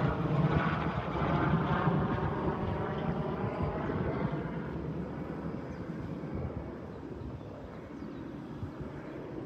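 Vintage British motorcycle engine on a cold test ride, its note fading steadily as the bike rides away into the distance.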